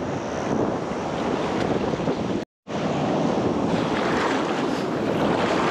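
Ocean surf washing and breaking around a swimmer, with wind buffeting the microphone. The sound cuts out completely for a split second about two and a half seconds in.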